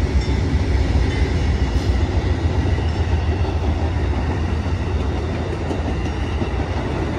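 Amtrak passenger train passing close by: the trailing P42 Genesis diesel locomotive goes by at first, then double-deck Superliner cars roll past with steady wheel-on-rail rumble and clatter.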